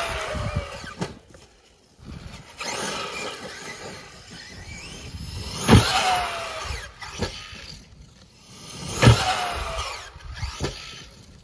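Traxxas E-Revo 2.0 RC monster truck on 6S jumping again and again. Its electric motor's whine builds under throttle to a sharp, loud hit as it leaves the ramp, a falling whine follows while it is airborne, and then a lighter thud comes on landing. This happens three times.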